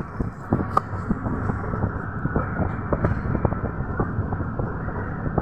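Passenger train running along the track, heard from inside the coach: a steady rumble with many short, irregular rattles and knocks.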